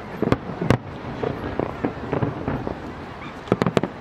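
Aerial firework shells bursting with sharp bangs: two in the first second, then a quick cluster of several near the end.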